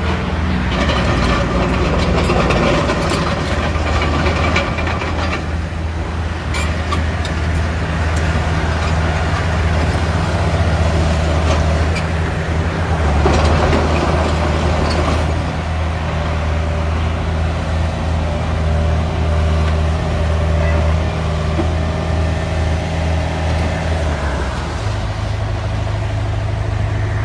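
Heavy diesel engines of construction machinery running steadily: a low drone that steps up in pitch near the end. A few sharp clanks come early on, and a noisy rush about halfway through.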